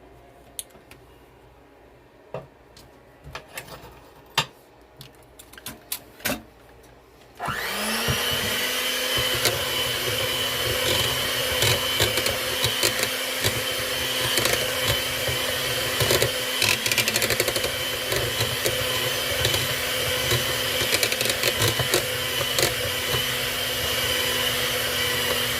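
A few light clicks and taps, then about seven seconds in an electric mixer switches on and runs at a steady speed, beating cake batter in a bowl, with small ticks of the beaters against the bowl.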